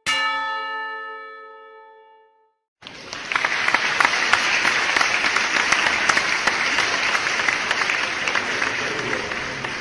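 A single bell-like chime strikes and fades away over about two seconds. After a brief gap, an audience breaks into steady applause that runs on, thick with many individual claps.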